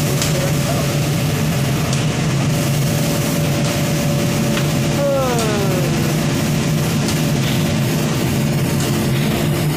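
Steady loud factory machinery noise with a low hum and a whine that slides down in pitch about halfway through, then holds at the lower note.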